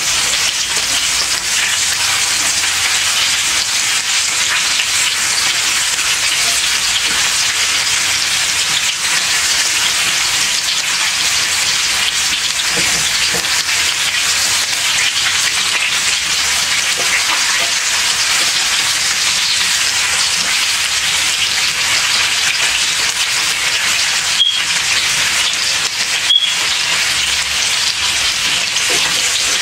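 Ground-beef meatballs sizzling steadily in a stainless steel skillet as they brown on the outside. Two short taps sound about two seconds apart near the end.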